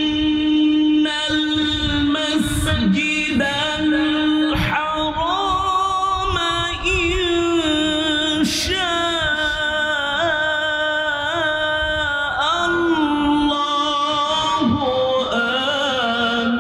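A man reciting the Quran in Arabic in a melodic chanted style, holding long notes that waver and glide in pitch with ornamented runs.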